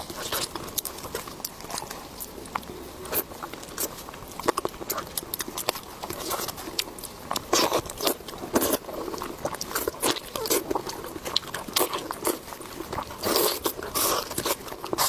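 A person biting and chewing food close to the microphone, with many irregular crunchy clicks and mouth sounds.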